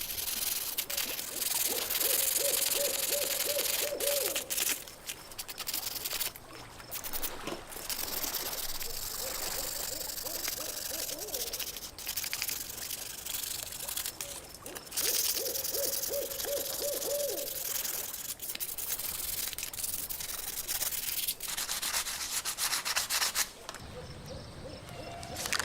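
Abrasive sanding or rubbing on metal: a steady scratchy hiss broken by clicks. A wavering low hooting tone comes and goes several times, each lasting about two seconds.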